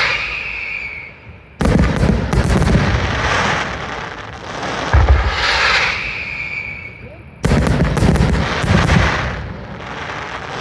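Fireworks display: aerial shells bursting with sharp reports about one and a half seconds in and again about seven and a half seconds in, each followed by a rapid crackle, with a deep boom and a hissing burst around five seconds in.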